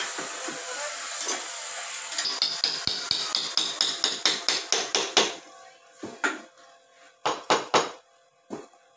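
A hammer tapping a metal pin into the end cap of an awning's aluminium roller tube. There is a quick run of ringing metallic taps, about four a second for three seconds, and then a few separate, louder strikes. A fading hiss comes before the taps.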